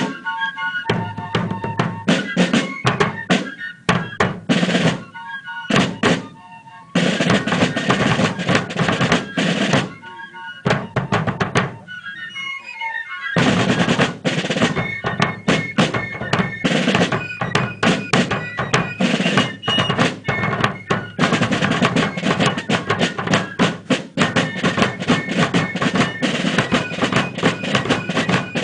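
Fife and drum music: snare drums playing rolls and fast, rapid strokes, with fifes playing a melody in places.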